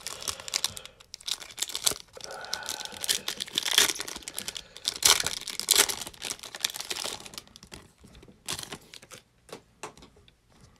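Foil trading-card pack being torn open and crinkled by hand, a dense crackling with sharp snaps. It thins out over the last few seconds to a few light clicks as the cards are handled.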